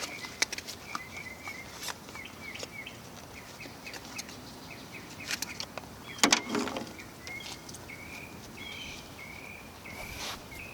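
Small birds chirping over and over, short repeated calls through the whole stretch, with scattered sharp clicks and a louder clunk about six seconds in.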